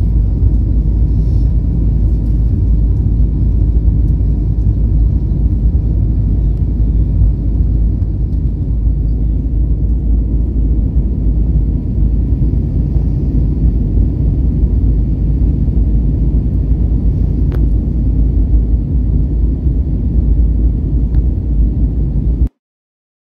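Steady low rumble of cabin noise inside an Airbus A320neo airliner climbing out, engine and airflow noise heard from a window seat, with a faint steady high tone over it. It cuts off suddenly near the end.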